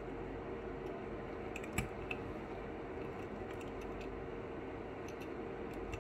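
Small clicks and taps of a 1:64 diecast model car being handled and turned over in the fingers, one sharper click about two seconds in, over a steady low hum.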